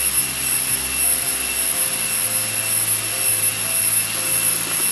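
Steady high-pitched insect drone, continuous and unchanging.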